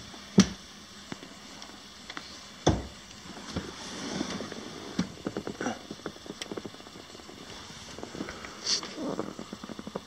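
Handling noise: two sharp knocks, then a run of light, irregular clicks and rustles, as of hands moving around and fiddling among wiring under a boat console.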